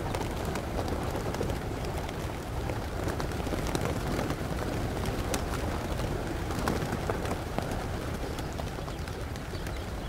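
A large flock of pigeons cooing together in a steady murmur, with many short clicks and wing flaps scattered through it and a low rumble underneath.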